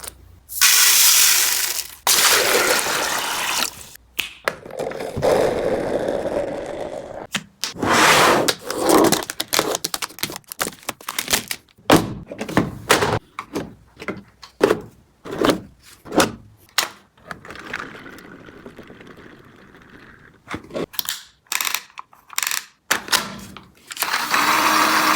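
A toy MCX airsoft gun kit and its case being handled: rustling stretches, then a run of short plastic clicks and knocks.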